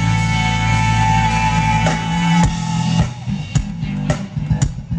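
Live funk band playing: a held chord with a sustained bass note rings for about two and a half seconds, then drum hits come in one after another.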